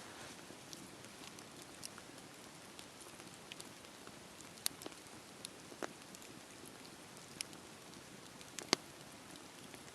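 Wood fire burning: a soft steady hiss with scattered sharp crackles and pops at irregular intervals, the loudest pop near the end.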